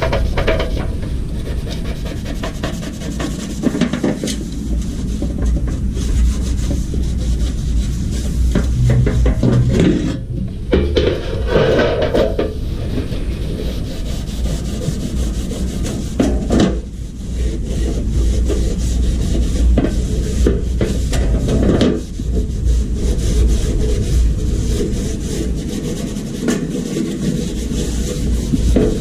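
Continuous rough scraping with scattered knocks, pausing briefly about ten, sixteen and twenty-two seconds in.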